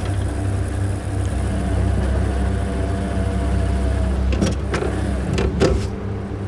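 Lobster boat's engine running steadily under a thin whine as a lobster trap is hauled up on its rope. From about four seconds in come a few sharp knocks and splashes as the trap breaks the surface and comes against the side of the boat.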